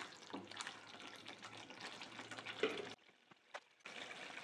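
Chilli paste frying and bubbling in oil in a nonstick wok, with a wooden spatula scraping and stirring through it. The sound drops out briefly about three seconds in, then a steady sizzle of the simmering paste follows.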